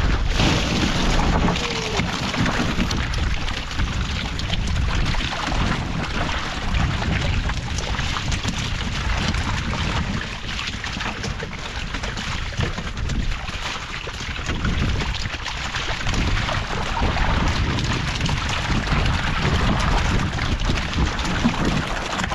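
Wind buffeting the microphone, with water splashing and sloshing as a wet gillnet full of vendace is hauled over the side of a metal boat.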